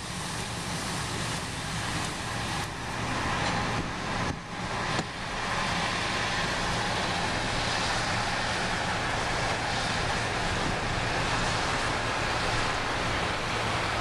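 Harvest machinery diesel engines running steadily close by, a low even drone under a broad rushing noise.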